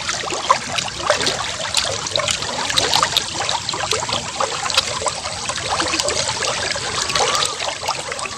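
Wet chewing and lip-smacking of someone eating beef steak with his fingers: many small moist clicks over a steady trickling, watery hiss.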